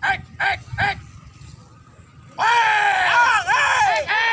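Human calls typical of a pigeon race: a few short, quick shouts, then about two seconds in a loud, long, wavering yell.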